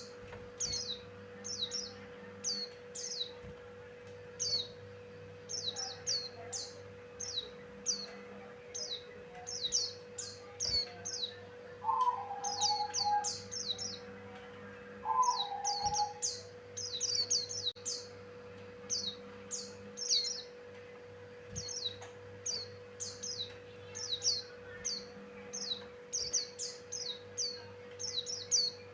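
A pleci buxtoni white-eye singing: rapid clusters of short, high, downward-slurred chirps with barely a break. Two lower, two-part calls come about 12 and 15 seconds in, over a steady low hum.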